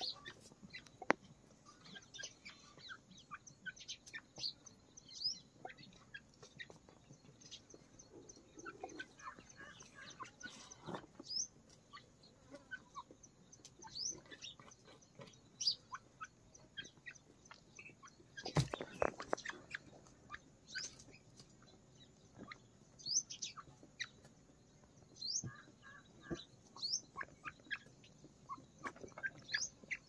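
Young grey francolins pecking at crumbled feed on bare ground: sharp taps of beaks on the earth mixed with many short, high chirps and soft clucks. A louder thump comes about eighteen seconds in.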